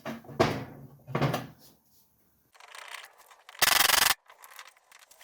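Rough scraping and rubbing as the Ford Mondeo's removed front strut and shock assembly is handled, with one short, loud scrape about three and a half seconds in.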